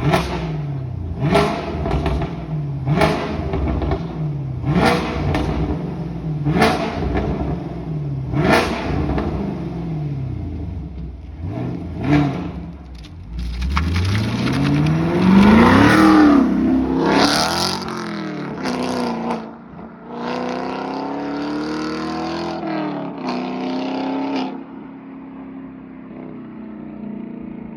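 A 2017 Camaro SS's 6.2-litre V8, breathing through an MBRP Race-series catback with the secondary cats deleted, revved in about five quick blips roughly two seconds apart, each ending in sharp crackles and pops. Then it accelerates past in a flyby, its pitch rising and falling, with more pops on lift-off. A steadier engine note follows, then drops to a quieter hum near the end.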